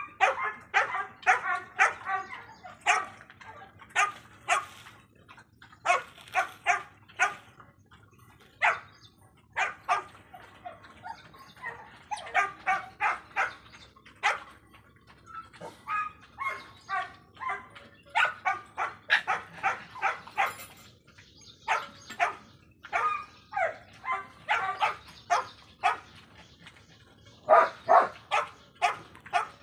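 Dogs barking in quick runs of short, sharp barks with brief pauses between the runs.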